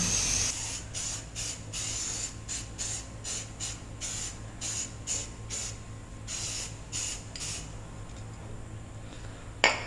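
Rust-Oleum aerosol spray paint can spraying in a quick string of short hissing bursts, stopping about three quarters of the way through. A single sharp short sound near the end.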